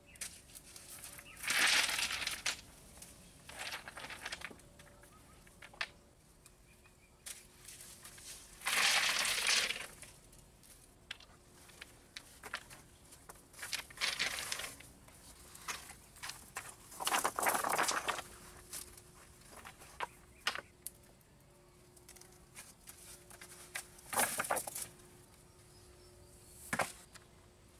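River stones scraping, crunching and clacking as they are set down and shifted on a gravel-and-stone pond floor, in separate bursts of about a second every few seconds, with short knocks between them.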